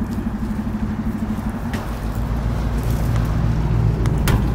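Motor vehicle engine running at low revs, a steady low hum that shifts to a deeper, louder note in the second half, with a couple of brief clicks.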